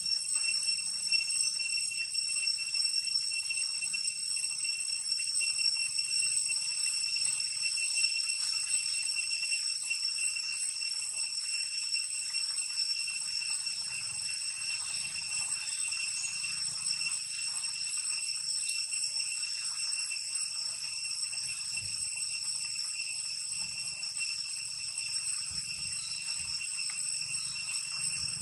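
A steady insect chorus: unbroken high-pitched ringing drone with several piercing tones held at once, unchanging throughout.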